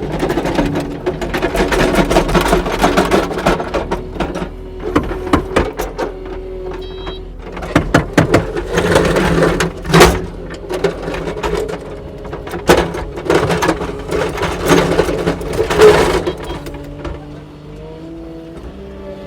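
Kubota SSV65 skid steer's diesel engine running under load while plowing snow, with clanks and knocks from the machine throughout and a sharp bang about ten seconds in. The engine pitch shifts up and down near the end.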